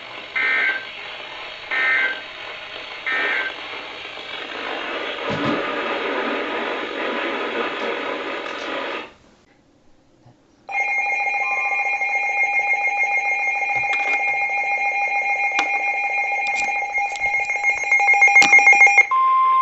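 Emergency Alert System tones between two weather-radio warnings. First come three short digital data bursts about a second apart, then a stretch of radio hiss that cuts off. About eleven seconds in, a loud steady electronic alert tone starts and pulses near the end, then gives way to a single steady tone.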